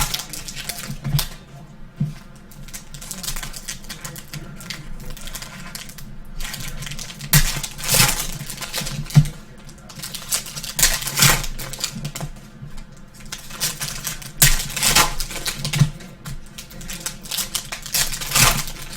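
Trading cards and pack wrappers being handled: short bursts of rustling, flicking and sliding of cards, several times over, with small clicks between them.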